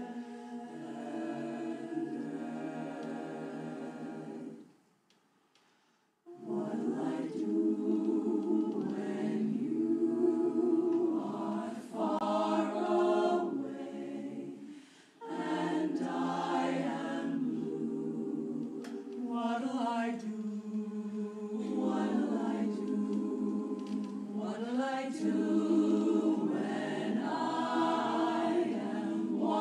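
Women's barbershop chorus singing a cappella in close harmony. The singing stops about four and a half seconds in for a short, fully silent pause, then the chorus comes back in together.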